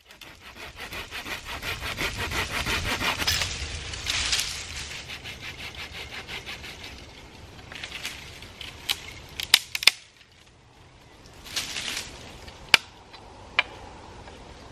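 A small hand saw cutting through a green wooden pole with quick, steady strokes for about seven seconds, followed by a few sharp cracks of wood.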